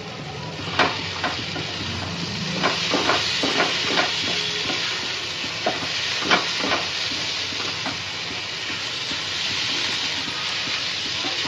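Mashed fish filling sizzling in oil in a nonstick frying pan as a wooden spatula stirs it, with a steady frying hiss. Sharp scrapes and taps of the spatula against the pan come in a cluster from about a second in to about two-thirds of the way through.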